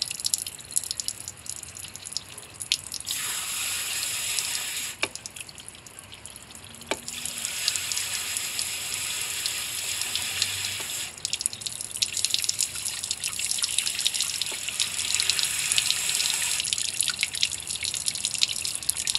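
Light spray from a hose nozzle rinsing salt out of an outboard engine's open powerhead, with water dripping and draining off it. The spray comes on in spells of a few seconds, with drips ticking in between.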